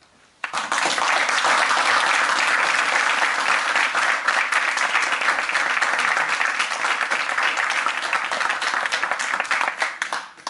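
Audience applauding: dense clapping breaks out suddenly about half a second in, holds steady, and dies away near the end.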